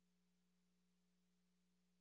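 Near silence, with a faint steady low hum under a faint hiss.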